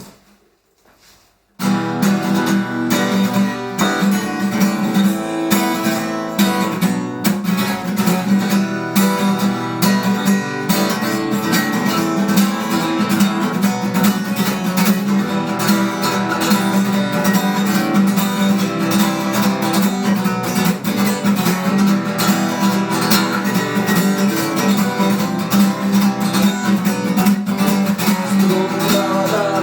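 Acoustic guitar strummed in a steady rhythm, starting suddenly about a second and a half in.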